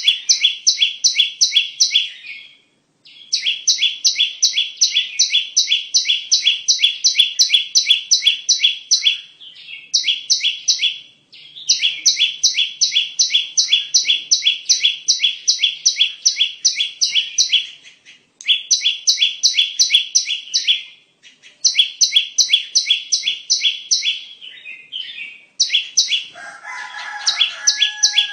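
Perenjak (prinia) lure call: a rapid, evenly spaced series of sharp chirps, about five a second, repeated in runs of several seconds with short breaks. Near the end a lower, different call sounds briefly over it.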